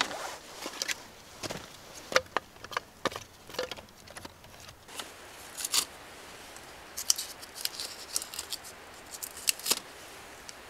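Irregular sharp snaps, clicks and short scrapes of dry wood being worked by hand.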